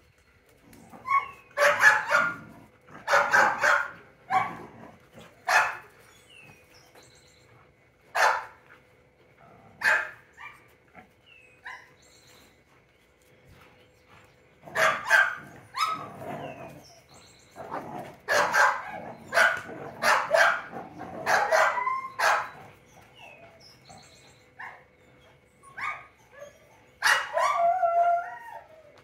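Large black dog barking in short, loud bursts while tugging on a toy, with several bursts at a time and pauses between them: excited play barking.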